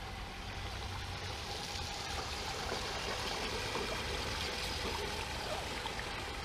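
Water splashing and churning as a radio-controlled scale crawler truck drives through a shallow creek, growing a little louder as it comes closer.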